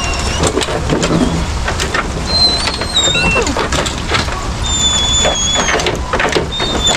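Pickup truck being driven, with a steady low engine and road rumble inside the cab and frequent rattles and knocks. Several thin, high squeals drift in and out over it.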